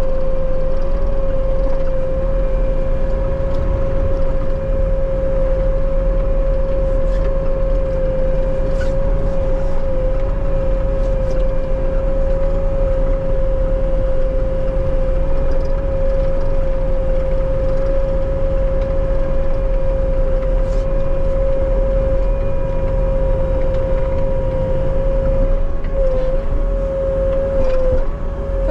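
Bobcat T77 track loader's diesel engine running steadily under work, with a constant high whine over the low rumble; the pitch wavers briefly near the end.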